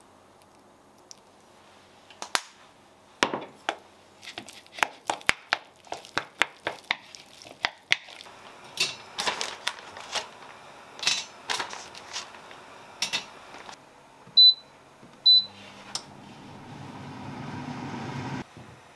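Sharp clicks and knocks of kitchen utensils and dishes. Then two short high beeps from an air fryer's control panel, and its fan starts up to preheat: a rising whir with a low hum that cuts off near the end.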